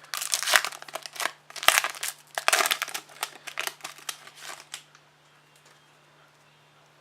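Wrapper of a trading card pack being torn open and crinkled by hand in rapid bursts, stopping about five seconds in.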